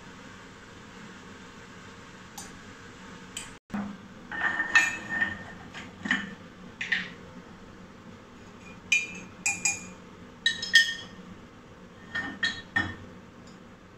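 A metal teaspoon clinking against glass jars and a ceramic mug: a string of short, irregular clinks, bunched most thickly about nine to eleven seconds in.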